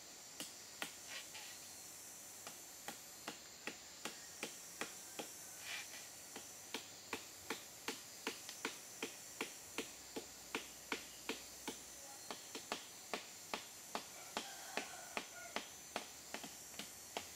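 A wooden mallet knocking against the flower stalk of a saguer (sugar) palm. The knocks are short and sharp: a few scattered ones at first, then a steady run of about three a second. This is the beating of the stalk that readies it for tapping its sap.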